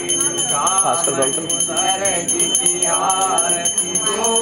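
Small hand bell rung rapidly and without pause, as in a Hindu aarti, over people singing a devotional hymn in long drawn-out notes.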